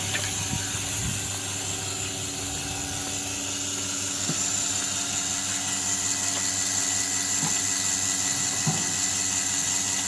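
Milking machine running steadily: an even mechanical hum and hiss, with a few faint clicks.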